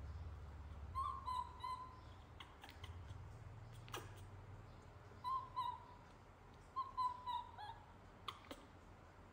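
Baby macaque giving short, high, cooing whimper calls in three small clusters, a cry of distress. A few sharp clicks sound in between.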